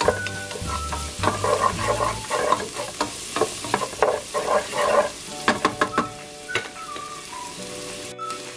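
Diced onion and garlic sizzling in hot oil in a nonstick pot, stirred with a wooden spoon that clicks and scrapes against the pan. The stirring is busiest in the first half and thins to occasional taps over a quieter sizzle after about five and a half seconds.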